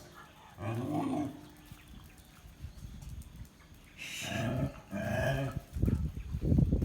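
A dog making short vocal sounds: one call about a second in and two more between four and five and a half seconds. Low rumbling noise follows near the end.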